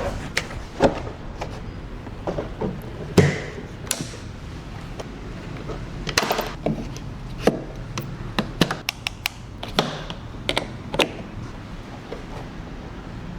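Irregular knocks, taps and clicks of a portable party speaker and its stand being handled and set up, about a dozen spread out, the loudest about three seconds in with a brief ring.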